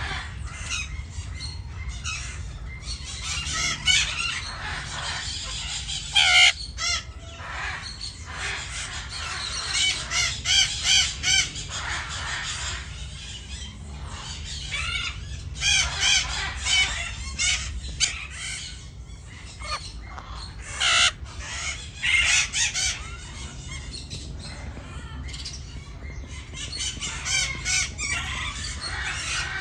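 Parrots squawking and calling repeatedly: many short, harsh, arching calls in bunches, loudest around six, eleven, sixteen and twenty-one seconds in.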